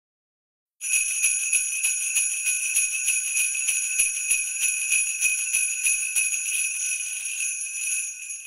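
Sleigh bells jingling in a steady shaking rhythm, about four shakes a second, starting about a second in and fading out near the end.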